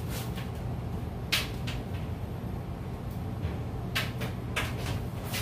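Steady low room hum with a few short clacks and knocks of objects being handled: one about a second in and a quick cluster around four seconds in.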